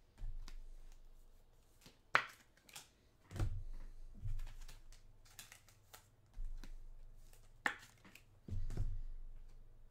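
Trading cards being handled on a table: several dull thumps and a few sharp clicks as cards are sorted and set down.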